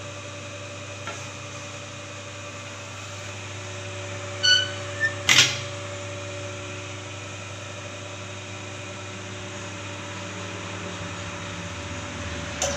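Electric motor of a pipe and hollow-section rolling machine running steadily with an even hum while it rolls stock into a circle. A brief squeak and a sharp knock come about five seconds in.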